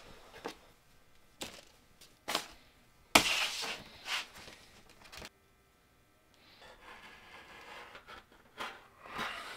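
Fleece fabric being handled, folded and smoothed out on a desk: a series of short rustling swishes, the loudest and longest about three seconds in, with the sound cutting out for about a second just past the middle.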